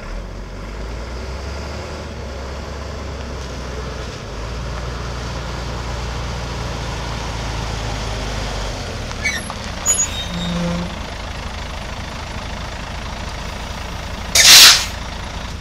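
A 1988 Ford L8000 truck's engine runs steadily as the truck drives up and slows, and its note drops away about nine seconds in. A few brief squeaks and clicks follow. Near the end comes one loud, short hiss from the air brakes.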